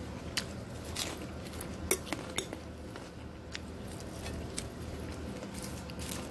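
Metal fork clinking and scraping against a bowl while stirring and spearing dressed salad: sharp, irregular clicks a few times a second at most, over a low steady hum.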